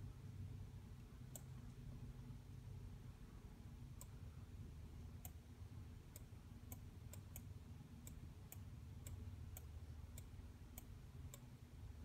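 About fourteen light, sharp computer clicks at an uneven pace, the button clicks of a pointing device used to edit an image, over a faint steady low hum.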